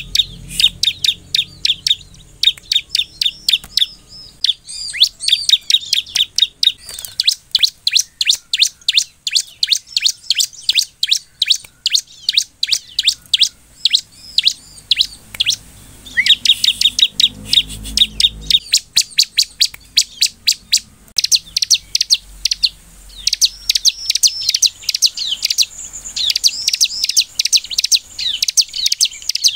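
Bar-winged prinia (ciblek) singing: a fast, unbroken run of sharp, repeated chirps, several a second, turning to higher, scratchier notes in the last several seconds.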